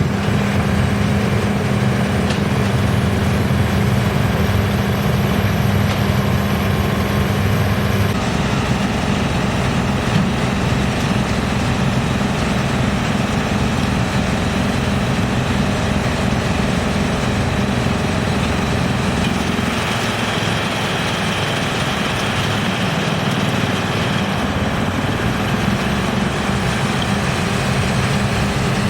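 GX2113 drum wood chipper, driven by its 220 kW main motor, running loudly and steadily with a low hum under dense mechanical noise; the sound shifts about eight seconds in and again near twenty seconds.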